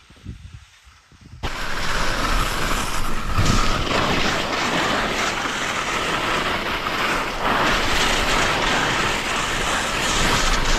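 Wind buffeting the microphone: a loud steady rushing noise that starts suddenly about a second and a half in, after a few faint low rumbles.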